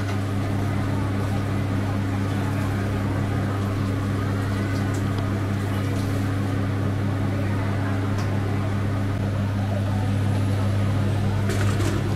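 Steady low machine hum from bakery kitchen equipment, even and unchanging, with a few light clicks near the end.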